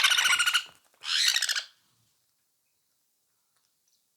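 Parrot chicks giving two short raspy, rapidly pulsed calls, the second about a second after the first, then silence.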